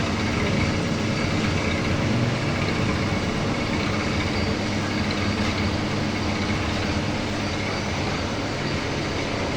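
CNC milling machine running steadily, a constant mechanical hum with a hiss over it.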